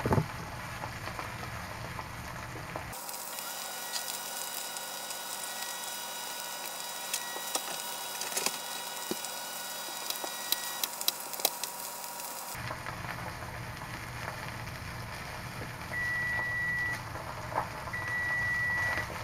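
Steak searing in a cast-iron skillet on high heat: a steady frying sizzle with small crackles. Near the end, two electronic beeps of about a second each.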